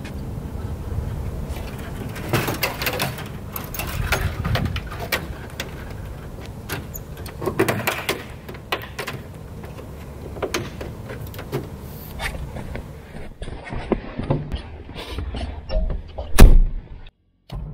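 Handling noises from a preflight check on a Piper Tri-Pacer light aircraft: a string of sharp clicks, knocks and rattles as parts of the airplane are handled, over a low wind rumble. Near the end comes one loud thump, the loudest sound.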